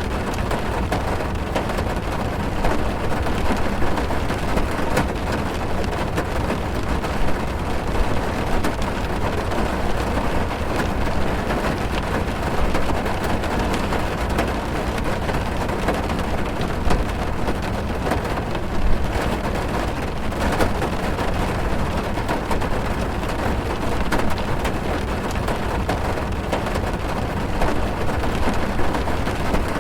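Heavy rain drumming on a car's roof and windows, heard from inside the cabin: a steady, dense patter with a deep low rumble and many individual drop ticks.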